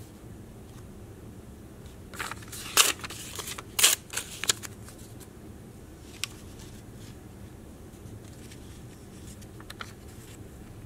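Paper photo prints being handled and slid about on a notebook page: a cluster of crisp rustles and crinkles lasting about two seconds, a single sharp click a little later, and a few faint rustles near the end.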